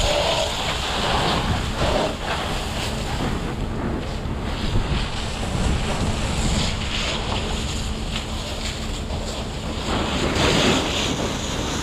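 Steady rushing noise of wind buffeting the microphone, mixed with the hiss of fire hoses spraying water onto smouldering debris.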